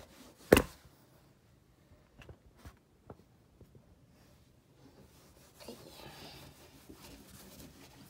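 Marker writing being wiped off a whiteboard: a sharp knock about half a second in, a few light taps, then a soft, even rubbing over the last couple of seconds.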